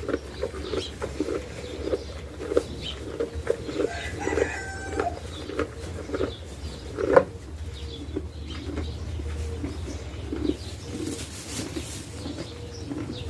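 A chicken clucking softly: a steady run of short, low clucks, about two or three a second, with a brief higher call around four seconds in and one sharp, loud sound about seven seconds in.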